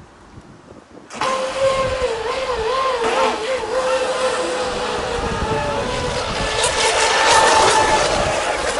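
Fast electric racing model boats running flat out, a high, slightly wavering motor whine over the hiss of spray, cutting in suddenly about a second in.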